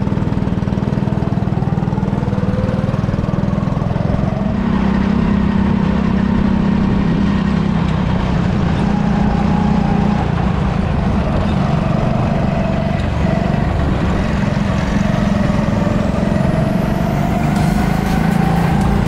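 Go-kart engines running, their pitch rising and falling again and again as the karts speed up and slow down.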